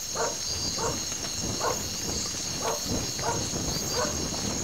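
A dog barking: about six short barks, spaced a little under a second apart, over the steady chirring of crickets.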